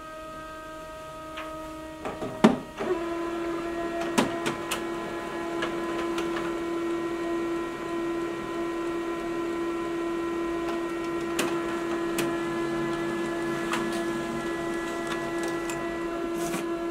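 HP Color LaserJet Pro M183fw colour laser printer starting up and printing a colour page. A few sharp clunks about two seconds in as it picks up the paper, then a steady motor hum with scattered clicks as the sheet feeds through.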